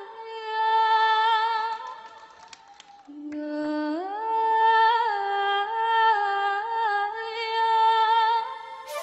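Background music: a solo wordless voice singing long held notes with vibrato, with a quieter stretch about two seconds in and a low note gliding up about four seconds in.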